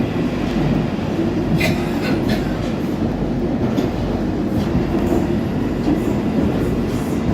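London Underground tube train running through the tunnel, heard from inside the carriage: a steady, loud rumble of wheels and motors. A few sharp clicks come about two seconds in.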